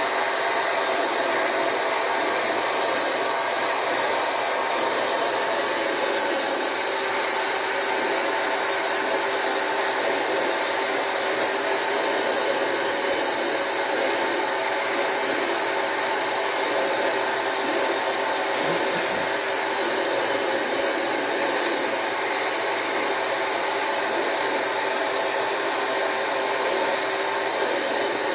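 Rug Doctor carpet extractor running steadily with a high whine, its vacuum motor sucking water and loosened dirt from mattress fabric through the upholstery hand tool during the final rinse extraction.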